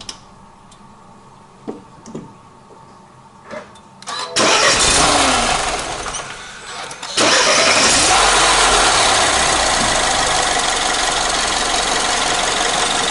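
BMW TwinPower Turbo engine starting after an oil and filter change: a few light clicks, then about four seconds in the engine catches with a brief flare of revs that falls away. From about seven seconds it runs steadily and louder.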